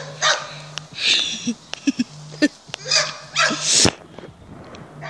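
A dog barking, several short barks a second or so apart.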